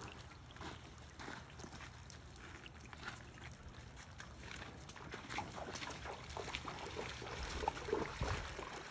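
A miniature horse wading into a shallow muddy pond, water sloshing and splashing around its legs, growing louder over the last few seconds. Light scattered ticks run underneath throughout.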